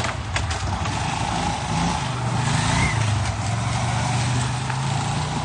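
Street traffic: a motor vehicle's engine running close by, a steady low hum over a background of traffic noise, strongest in the middle.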